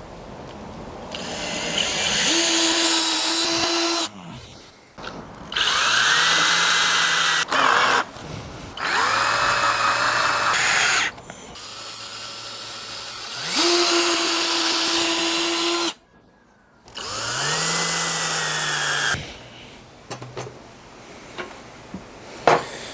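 Power drill running in about five bursts of two to three seconds, each starting with a rising whine that then holds steady: drilling pilot holes and setting screws in the wooden stock and butt piece.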